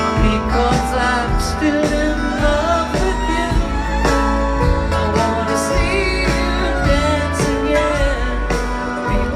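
Live band playing a slow country-folk song, with strummed acoustic guitar, upright bass, drums and a wavering melody line on top, recorded from the audience.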